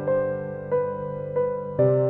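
Slow piano background music: a new note every two-thirds of a second or so, over held lower notes.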